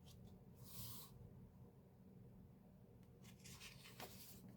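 Faint handling of the album's glossy photo paper: two brief soft swishes as it slides and a light tick near the end, over near silence.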